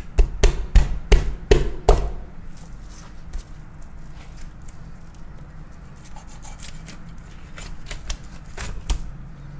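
Chef's knife scraping the scales off a mutton snapper on a wooden cutting board: about seven quick, sharp scrapes in the first two seconds, then lighter handling, and two more sharp knife strokes near the end.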